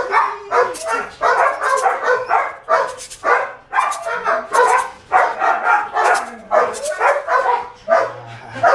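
Eight-week-old Belgian Malinois puppy barking in quick short bursts, two or three a second, while biting and tugging on a bite pillow.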